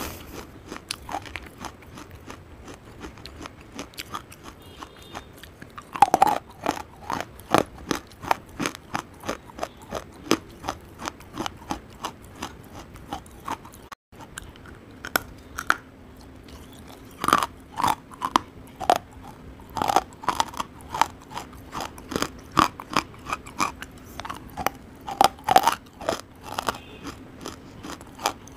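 Close-miked biting and chewing of hard roasted clay chunks: sharp, crisp crunches in quick runs, thickening about six seconds in, with a brief gap midway.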